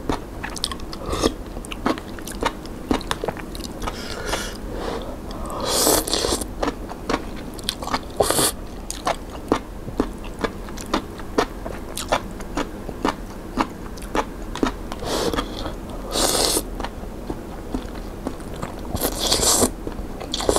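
A person eating close to the microphone: a steady run of wet chewing clicks and crunches, broken by four louder slurps, the last near the end as glass noodles are sucked up from the soup.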